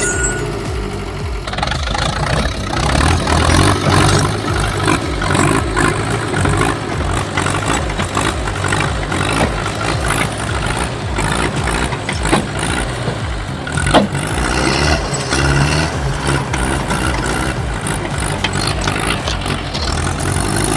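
Tractor engine running with rising and falling load, consistent with pulling at a stump. A couple of short sharp cracks come about two-thirds of the way through.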